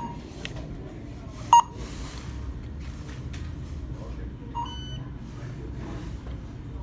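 Self-checkout kiosk beeping: one short, loud beep about a second and a half in, then a softer beep with a brief higher chirp around four and a half seconds, over a low steady store hum.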